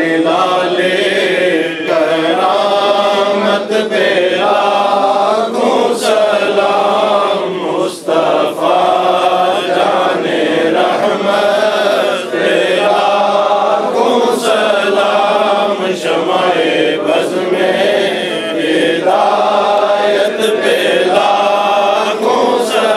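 A man's voice chanting a devotional recitation into a microphone, a melodic line in long phrases with brief pauses for breath.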